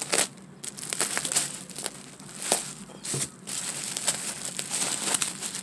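Plastic bag and bubble wrap crinkling in irregular crackles as a taped-up bag is worked open by hand.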